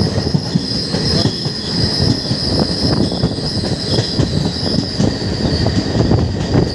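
Express passenger train running at speed, heard from on board: a dense, continuous rattle and clatter of the coaches and wheels on the rails, with a steady high-pitched wheel squeal over it.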